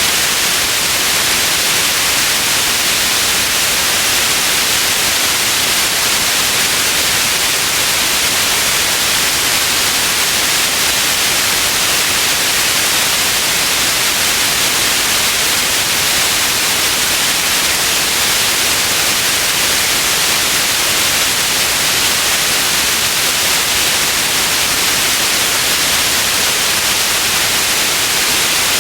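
Steady white noise: an even, unchanging hiss, strongest in the upper range.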